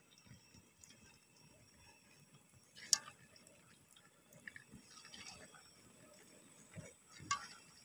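Skewered cilok (tapioca balls) frying in a wok of hot oil: faint sizzling with small pops and crackles, and one louder click about three seconds in.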